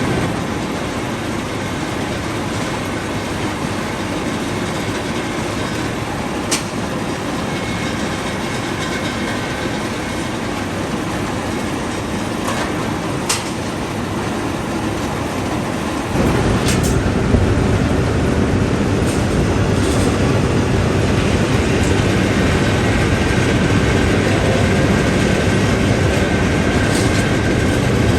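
Steady running noise of heavy steel-mill machinery, with a few sharp metallic clanks. It gets louder and deeper about halfway through.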